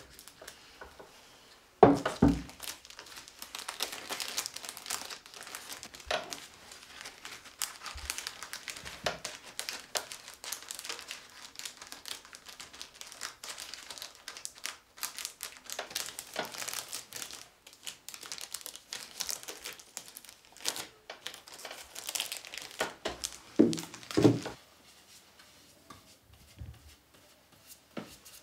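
Dense, irregular crinkling and crackling, as of material being handled and crumpled, with a sharp knock about two seconds in and a few more knocks near the end.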